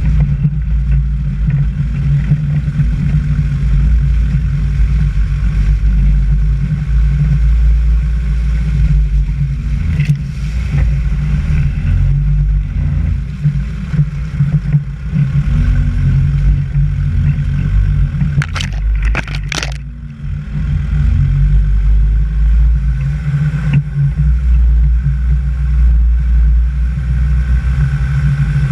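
Vehicle engine running steadily as it drives along a wet, muddy dirt track, a dense low rumble throughout, with a few sharp knocks around the middle.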